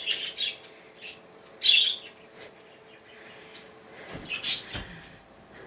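Pet budgies chirping in short bursts, with a sharp knock about four and a half seconds in.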